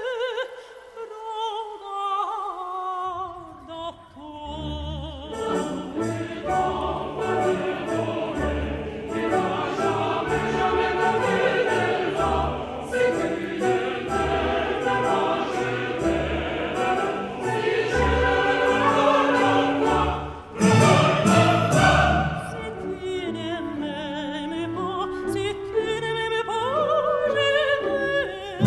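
Background music: operatic singing over an orchestral accompaniment with a steady beat, swelling louder about two-thirds of the way through.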